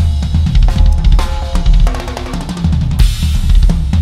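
Acoustic drum kit played live: bass drum hits with snare and ringing tom strokes, and a Paiste cymbal crash about three seconds in.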